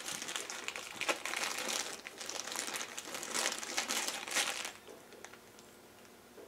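Plastic packaging crinkling as a new bearing is handled in its bag, stopping about four and a half seconds in, followed by a few faint ticks.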